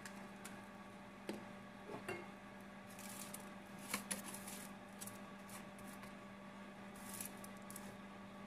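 Faint kitchen handling: scattered light clicks and short scrapes, most of them about three to four and a half seconds in and again near seven seconds, over a steady low hum.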